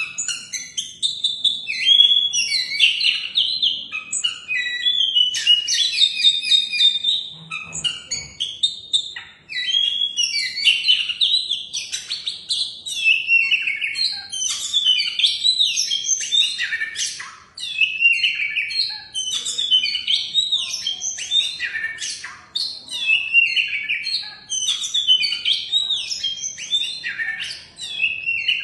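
Oriental magpie-robin (kacer) singing a long, varied song of rapid, pitch-sliding phrases with brief pauses between them.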